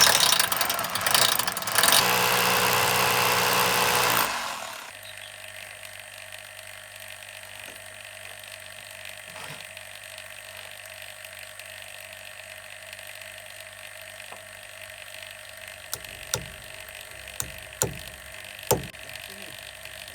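A power drill runs loudly for about four seconds and stops suddenly, drilling holes for the expansion bolts that fix an air-conditioner outdoor unit. A refrigerant vacuum pump then hums steadily as it evacuates the lines, and a few sharp knocks come near the end.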